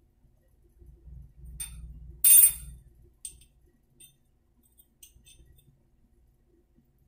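Toilet spud washer and metal ring being worked into the porcelain inlet by hand: low rubbing and handling, then one sharp clink about two seconds in, followed by a few light clicks.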